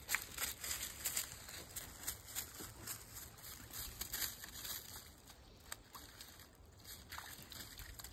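Footsteps crunching through dry fallen leaves and twigs, a steady patter of small crackles that thins out for a couple of seconds past the middle.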